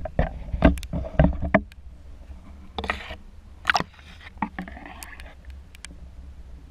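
Water splashing and sloshing close to an underwater camera, with a quick run of sharp splashes and knocks in the first two seconds, then a few softer sloshes, over a steady low rumble of water.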